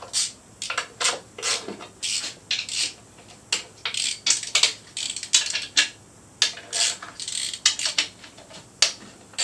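Hand socket ratchet clicking in short, irregular spells, with metal tool clinks, as bolts are backed out around the intake manifold of a 454 big-block Chevy V8.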